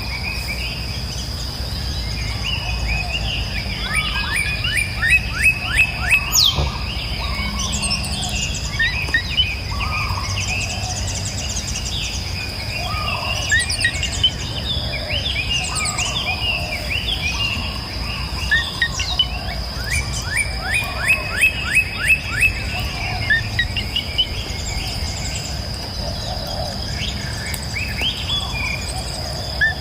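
Rainforest ambience: several birds calling and chirping over a steady, high insect drone. Twice a bird gives a fast run of short falling notes, a few each second.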